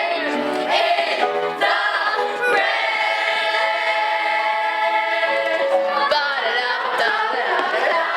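A chorus of young voices singing a show tune together, holding one long chord in the middle.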